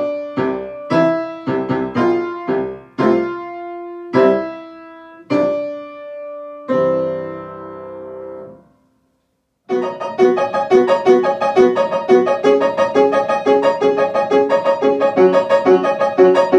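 Piano playing a slow, simple melody with chords, ending on a held chord that fades out about eight seconds in. After a second of silence, quicker and busier piano music starts and runs on.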